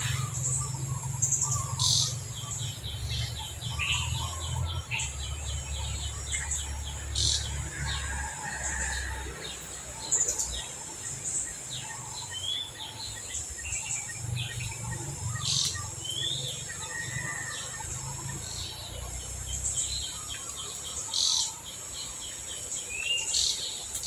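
Birds chirping, with rapid trills and short upswept calls repeating throughout, over a steady high insect buzz and a low rumble.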